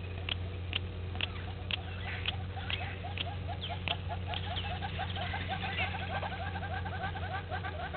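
Waterhole wildlife ambience: sharp high chirps about every half second, then, from a few seconds in, a fast run of short low calls, about four a second, over a steady low hum.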